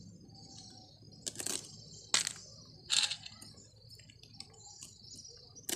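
Knife cutting through a pile of fresh leafy greens, a few separate crisp cuts.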